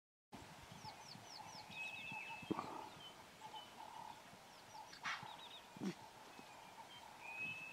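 Faint bush ambience of birds calling: quick repeated chirps and short trills, over a faint steady background, with a couple of soft thuds around the middle.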